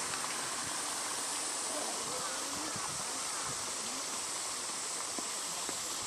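Shallow stream flowing over bedrock: a steady rush of running water, with faint distant voices behind it.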